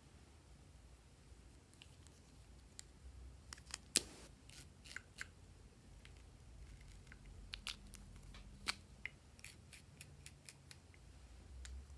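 Glossy slime being handled and squeezed, giving scattered sharp sticky clicks and snaps, the loudest about four seconds in.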